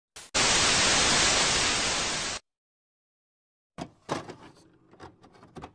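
TV static sound effect: loud white-noise hiss for about two seconds that cuts off suddenly. After a second or so of silence, a run of short clicks and crackles.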